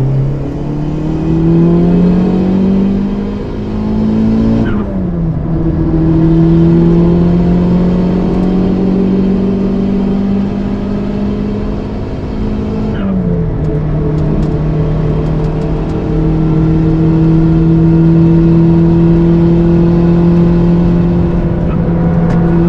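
Toyota Starlet Glanza V's turbocharged 1.3-litre four-cylinder, fitted with a bigger turbo, pulling hard with the revs climbing. It shifts up twice, about five and thirteen seconds in, each time dropping sharply in pitch before climbing again more slowly.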